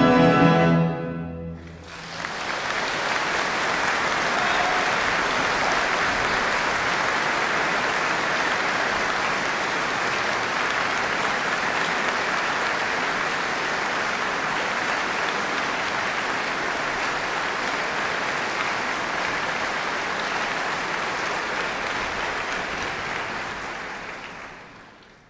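A full symphony orchestra's final chord cuts off about a second in. After a brief pause, a large concert-hall audience applauds steadily, and the applause fades out near the end.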